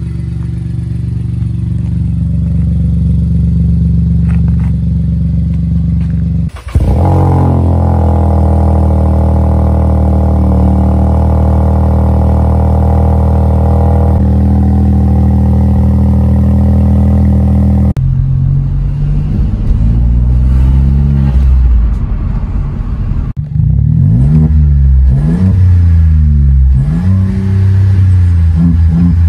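Seat Ibiza 1.0 TSI three-cylinder turbo engine through a straight-piped catback exhaust with no resonator or silencers. It runs steadily at first, then gives a louder, even drone at the tailpipes. From about two-thirds of the way in it is revved again and again, the pitch rising and falling with each blip.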